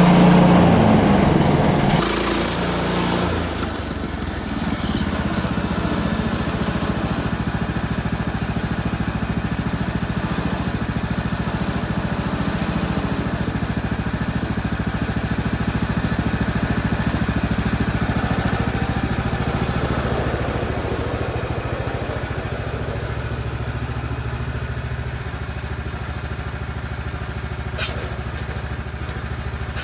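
Small gasoline engine of a portable band sawmill running steadily, louder for the first two seconds and then settling to a lower, even level. A few brief high chirps near the end.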